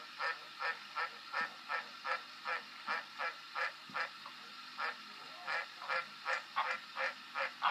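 Green tree frog calling: short, rasping croaks repeated about three a second, with a brief pause around five seconds in.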